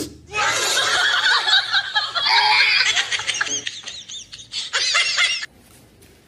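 People laughing, several voices overlapping, starting about half a second in and cutting off abruptly near the end.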